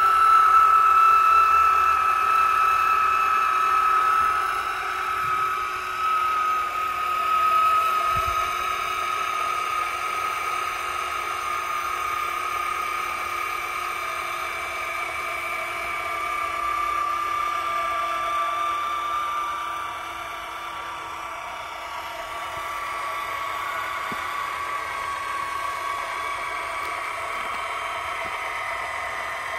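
Cordless electric caulking gun running steadily as it pushes a bead of windshield urethane, a high motor whine that slowly sinks in pitch.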